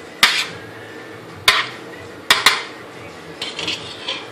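A utensil knocking and clattering against a roasting pan as par-boiled potatoes are turned over in oil. There are four sharp knocks in the first two and a half seconds, then lighter scraping and clinking.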